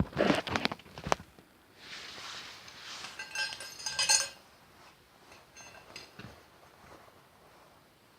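Metal hand tools and chainsaw parts being handled: a quick clatter of knocks at the start, a scrape, then a ringing metal clink a few seconds in, followed by a few light taps.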